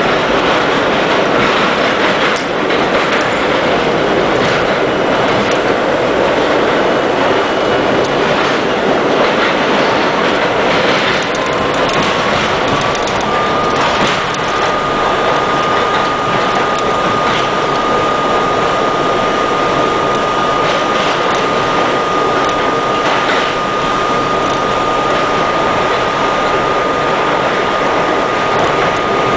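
Budd R32 subway train running at speed through a tunnel: a loud, steady roar of wheels on rail with faint rail-joint clicks. About ten seconds in, a thin whine rises in pitch, then holds one steady note.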